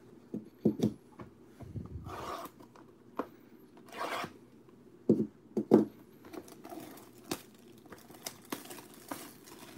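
Cardboard box of trading card packs being opened by hand: two short tearing rips about two and four seconds in, sharp knocks of the box being handled near the start and again around five seconds, and light crinkling of the foil packs near the end.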